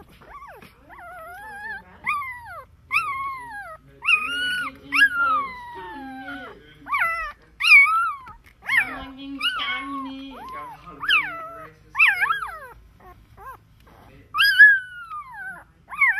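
A litter of newborn golden retriever puppies whimpering and crying, with a string of high-pitched cries that glide up and down, about one a second.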